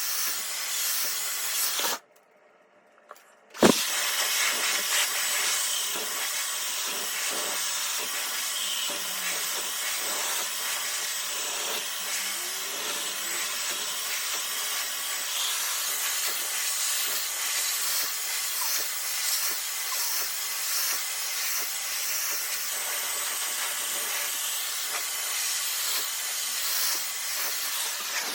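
Dyson Supersonic hair dryer with its smoothing nozzle, blowing a steady hiss of air. About two seconds in the sound drops out for a second and a half and comes back with a sharp click.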